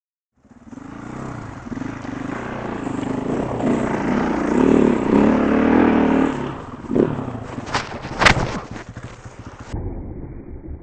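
KTM 525 EXC's single-cylinder four-stroke engine pulling under throttle as the dirt bike is ridden over rough ground, growing louder over the first few seconds. A few sharp knocks come about seven to eight seconds in, the loudest just after eight, and then the engine sound turns quieter and duller.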